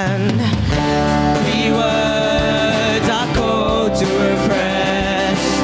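A band playing a song with guitar and singing.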